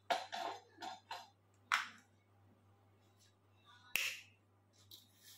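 Clicks and clacks of a battery charger's clamps and leads being handled and clipped onto the terminals of a 12-volt lead-acid battery, then a single knock about four seconds in as the charger is set down, over a faint steady low hum.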